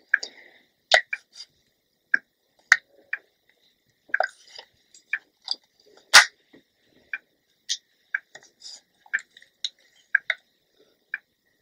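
Scattered small clicks and taps, irregularly spaced, from handling a flat iron while curling short hair. The sharpest one comes about six seconds in.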